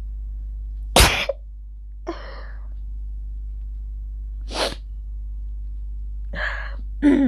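A woman sneezing: a sharp sneeze about a second in, then more short bursts of breath and sneezing, over a steady low hum.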